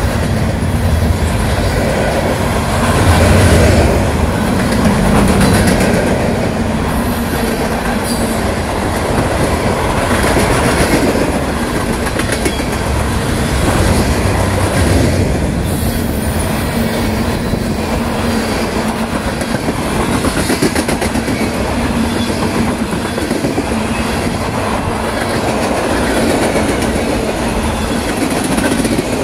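Freight train cars rolling past close by, a steady rumble with the steel wheels clicking over the rail joints.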